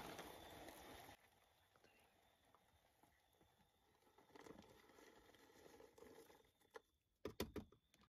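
Faint rustling and pattering of black soldier fly larvae and compost sliding out of a plastic tub onto sawdust, ending with a few sharp knocks about seven seconds in.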